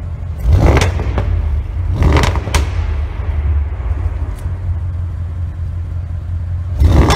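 Audi RS6 Performance's twin-turbo V8 idling through its sport exhaust with a deep, steady rumble. It is blipped sharply three times: about half a second in, about two seconds in, and near the end. A couple of sharp pops follow as the revs drop.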